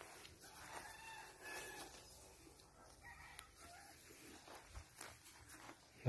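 Faint rooster crowing, a drawn-out call about a second in and a shorter one near three seconds.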